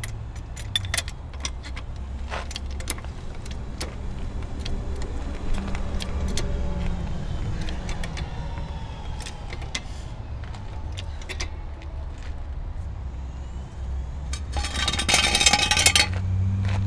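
Hydraulic floor jack being worked to let the car down: scattered sharp metal clicks and rattles of the jack handle and linkage over a steady low hum. Near the end comes a loud rattling clatter lasting about a second.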